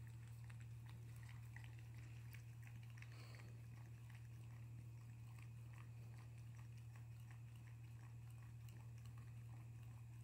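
Faint chewing and small clicking sounds of a Shetland sheepdog eating from a bowl, over a steady low hum.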